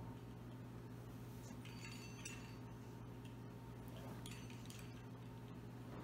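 Faint, light clinks and scrapes of a pizza-wheel cutter rolling through puff pastry on a plastic cutting board, a few separate strokes over a steady low hum.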